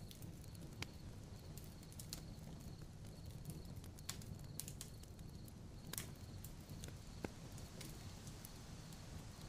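Faint, steady low rumble with sparse, irregular sharp clicks scattered through it.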